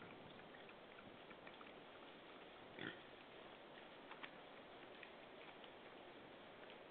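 Wild boar feeding on the forest floor: faint scattered clicks and crunches of rooting and chewing, with one short grunt about three seconds in.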